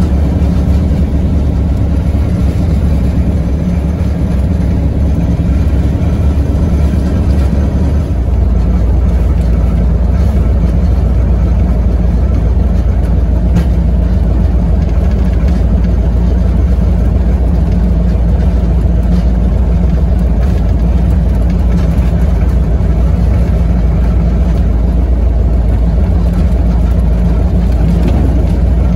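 Light aircraft's piston engine and propeller running steadily at taxi, heard from inside the cabin, with a strong low drone. About eight seconds in the low rumble gets deeper and a little louder.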